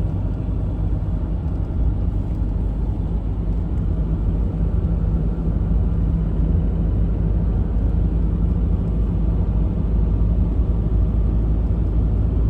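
Car driving at a steady speed, with a steady low drone of engine and road noise.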